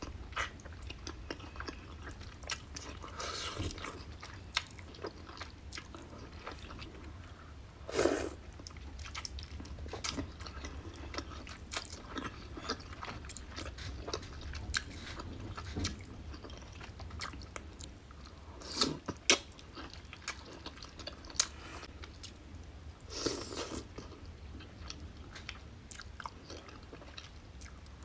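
Close-miked eating of a seafood boil: biting, chewing and crunching with many sharp wet clicks and smacks, and a few louder bursts of noise.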